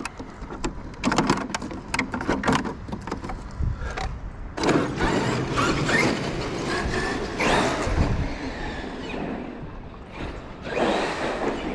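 Traxxas X-Maxx electric RC monster truck: a run of sharp clicks and knocks, then from about five seconds in the truck driving in spurts, its motor whine rising and falling over tyre noise, with another short burst near the end.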